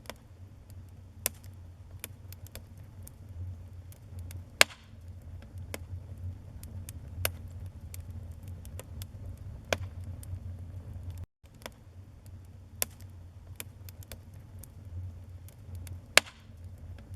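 Wood fire burning in a fireplace, crackling with irregular sharp pops over a low steady rumble; two pops, about 4.5 and 16 seconds in, are much louder than the rest. The sound cuts out for an instant about 11 seconds in.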